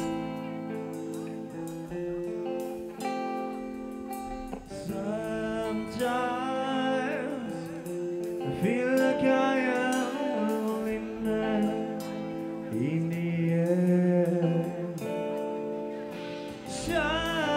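A rock band playing a slow, quiet passage live, with clean electric guitar notes ringing and held. A sung vocal line comes in about five seconds in, and a heavier low end joins near the end.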